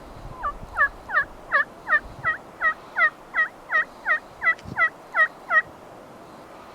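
A run of about fourteen turkey yelps, evenly spaced at roughly three a second, each note dropping sharply in pitch.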